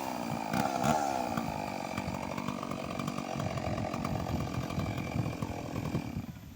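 Stihl 381 two-stroke chainsaw running, its pitch dipping and rising once about half a second in, then holding steady before dropping away near the end.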